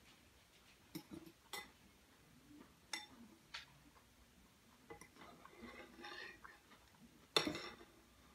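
Metal fork clinking and scraping against a salad bowl as food is picked up: a few sharp clicks a second or two apart, a softer scratchy stretch past the middle, and the loudest clink near the end.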